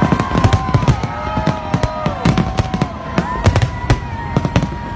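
Aerial fireworks bursting in quick succession: many sharp bangs and crackles, with drawn-out whistles that drop in pitch as they end.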